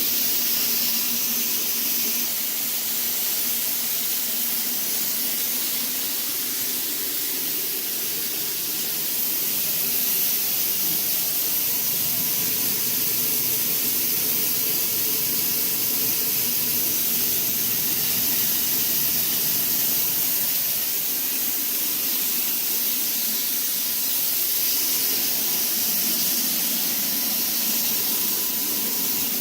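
Dry-fog sterilization fogger running, a steady hiss of fog being sprayed out.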